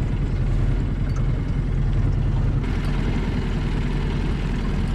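Engine idling with a steady low hum.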